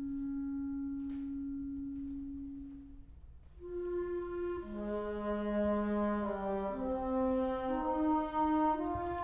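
Youth orchestra playing a new contemporary orchestral piece: a single long held note that fades out about three seconds in, then several instruments come in together with sustained chords that shift from note to note.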